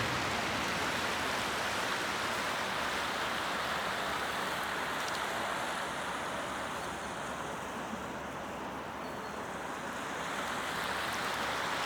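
River water rushing steadily, an even hiss with no pauses.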